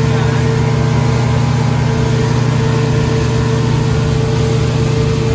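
A Yamaha 200-horsepower outboard motor runs with a steady drone as the boat travels at speed. Rushing water from the wake and wind sound under it.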